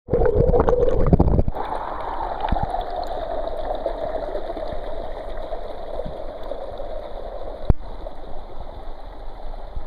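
Small rocky creek rushing and splashing over stones, loudest in the first second and a half, then a steadier rush. A single sharp click comes about three-quarters of the way through.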